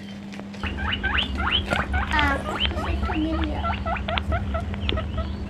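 Battery-operated toy rabbit playing a fast run of squeaky electronic chirps, with its motor humming underneath; the chirping starts about half a second in.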